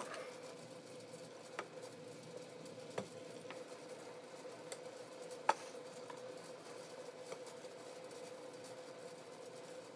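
Faint handling sounds: a few scattered light clicks and taps as fiberglass antenna tubes are moved on a workbench and marked with a felt-tip marker, the sharpest click about halfway through, over a steady faint hum.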